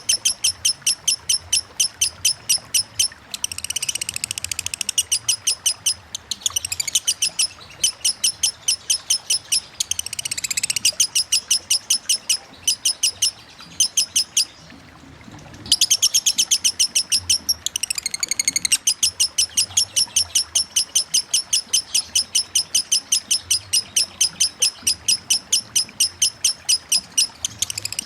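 Lovebird singing in long runs of rapid, sharp chip notes at about six a second, the 'ngetik' song, broken by a few short chattering phrases and a brief pause midway.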